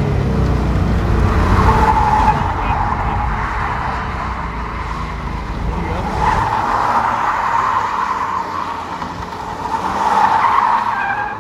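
1988 Toyota Supra MK3's 7M-GE inline-six held at high revs while the rear tyres spin and squeal on pavement after a clutch dump, the start of a drift. The tyre squeal comes in waves, strongest about two seconds in, around six to eight seconds, and near the end.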